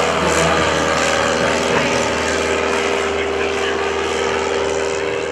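Propeller-driven aircraft engine running with a steady drone and a constant-pitched hum.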